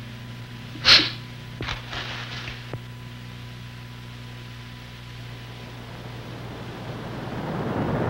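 A man gives one sharp, sneeze-like nasal burst about a second in, followed by a few fainter sniffs, over a steady low hum from the old film soundtrack. In the last couple of seconds a rushing noise rises steadily as he draws in for a drawn-out, slowed-down sneeze.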